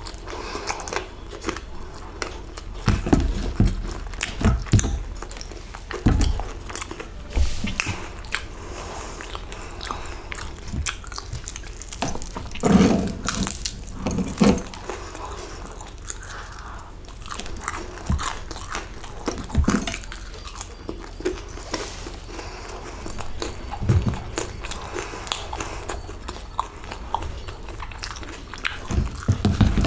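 A person biting and chewing a samosa close to the microphone, with irregular crunches of the fried pastry between quieter chewing.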